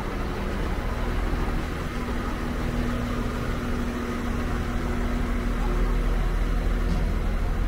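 Irish Rail 22000 Class diesel railcar standing at the platform with its engines idling: a steady low rumble with a held hum.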